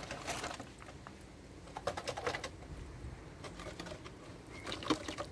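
Small clicks and scrapes as a hand presses and adjusts steel rods set in wet concrete in filled baluster molds, coming in three short clusters.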